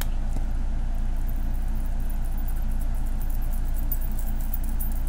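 A steady low background hum with faint soft ticks over it.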